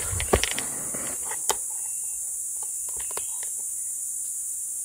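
Steady high-pitched drone of rainforest insects, with a few sharp clicks and knocks in the first second and a half and fainter ones a little later.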